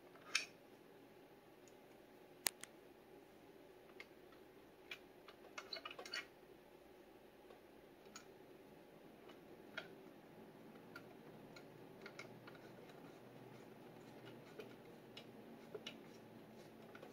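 Faint, scattered small clicks and taps from hands handling a Bowers & Wilkins CM1 speaker cabinet and its tweeter parts, over a quiet room hum. The sharpest clicks come just after the start and about two and a half seconds in, with a quick cluster of taps about six seconds in.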